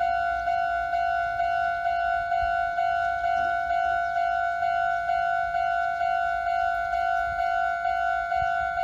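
Japanese railway level-crossing alarm ringing: an electronic bell tone struck over and over at an even pace, about two strikes a second, warning that a train is coming.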